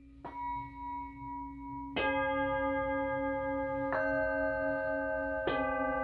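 Singing bowls struck one after another, four strikes about every second and a half. Each strike adds its own ringing tones, which hold on and overlap with a slow wavering.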